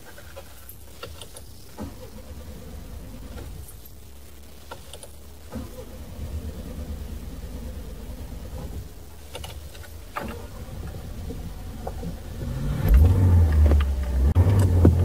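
Car engine running with a low, steady rumble and a few soft knocks, then about thirteen seconds in it revs up loudly and the car accelerates.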